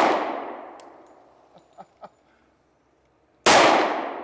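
Two pistol shots from a Glock 20 10 mm firing 230-grain hard cast bullets, one as it begins and one about three and a half seconds in. Each is a sharp crack followed by a long echoing decay. A few faint clinks and knocks come between them.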